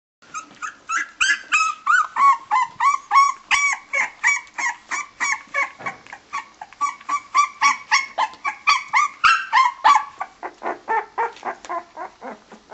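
Newborn bulldog puppy crying in a rapid string of high, squealing yelps, about three a second. For the last two or three seconds the cries grow weaker and lower.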